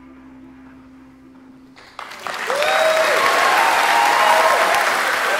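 Concert audience bursting into applause about two seconds in, with whoops and cheers rising and falling over the clapping. Before it, the last of the song lingers as a low held tone.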